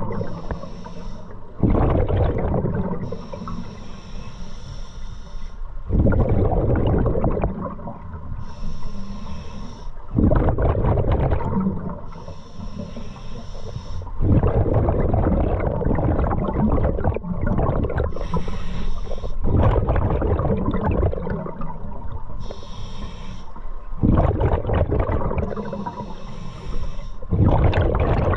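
A scuba diver breathing through a regulator. Each breath is a hissing inhale followed by a loud burst of exhaled bubbles rumbling past, repeating about every four seconds.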